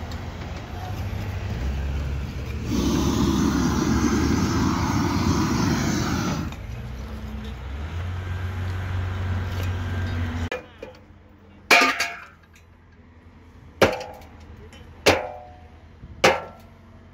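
Steady site noise with a louder hiss for a few seconds, then four sharp hammer blows on timber formwork bracing in the second half, spaced a second or two apart.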